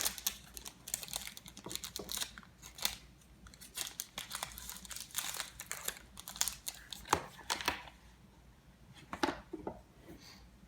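Product packaging being handled and rummaged through: irregular crinkling, rustling and scraping, busy for most of the time and sparser over the last few seconds.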